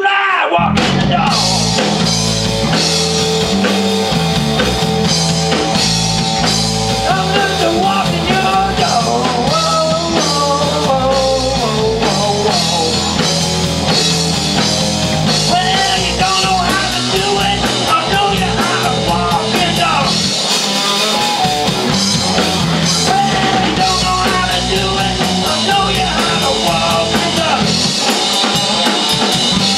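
Live rock band playing loud, with electric bass, electric guitar and drum kit. The bass and drums come in together about half a second in.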